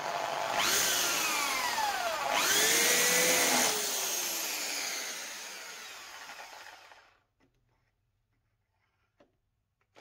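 Electric hand drill with a 13 mm bit spinning against the work to spot a centre mark, not drilling through. It runs in two bursts, its pitch falling as it slows after each, then winds down and stops about seven seconds in.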